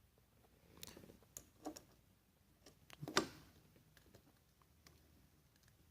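Scattered small clicks and taps of a screw being fitted back into the hardtop rear latch cover by hand, the sharpest about three seconds in.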